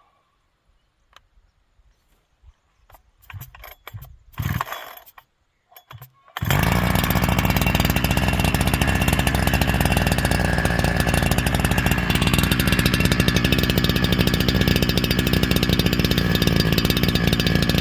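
A 70cc two-stroke chainsaw being pull-started: a few short bursts from the pulls, then the engine catches about six seconds in and runs steadily and loudly.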